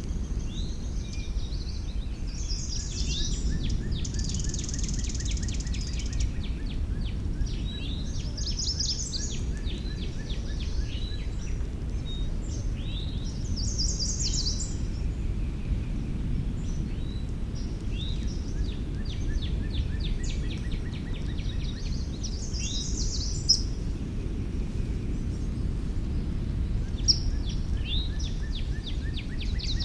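Several wild songbirds singing, with quick repeated chirps and trills that come and go, over a steady low rumble of outdoor background noise.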